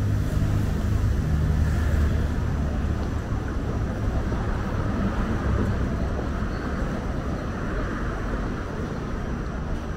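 City street ambience: a steady, even rumble of road traffic going by, with no single sharp event standing out.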